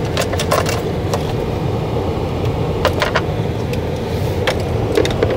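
Steady low hum from a powered-on Jaguar I-Pace electric car standing with its driver's door open, with a scattering of light clicks and taps.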